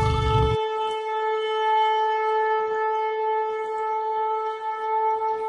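Shofar, a ram's horn, blown in one long, steady note.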